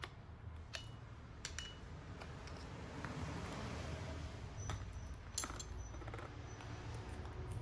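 Light metallic clicks and clinks of tools and small parts being handled while working on a car AC compressor's magnetic clutch, a few sharp taps over a low steady hum.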